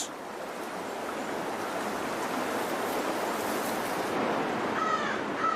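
Steady rush of water in a salmon creek, heard as an even hiss. Near the end come two short high calls.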